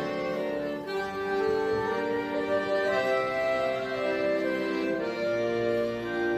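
Accordion playing a folk tune in long held notes and chords.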